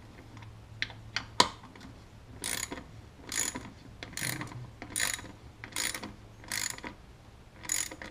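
Hand ratchet wrench with a socket extension clicking through repeated back-strokes, a little under one a second, as bolts are run down on top of the engine. A few single sharp clicks come first, the loudest about a second and a half in.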